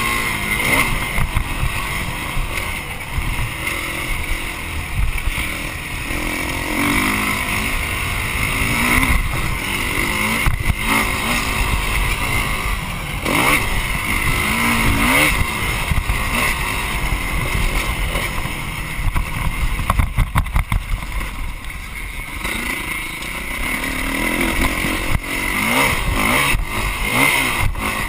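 Dirt bike engine revving up and down through the gears under hard acceleration. Around twenty seconds in, the sound breaks into a quick run of sharp cut-outs and bursts as the throttle is chopped.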